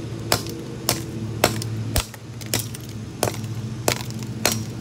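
A hammer striking the bare aluminium body of an iPhone 6, about eight sharp, even blows a little over half a second apart.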